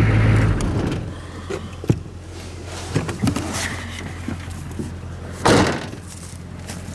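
6.2 diesel V8 idling cold, then shut off, its hum dying away within the first second. A few light knocks follow, and a door slams shut about five and a half seconds in.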